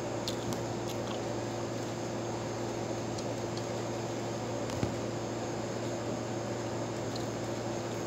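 A steady background hum and hiss, with a few faint soft clicks and one sharper tap about five seconds in as green grapes are handled and picked from their stems.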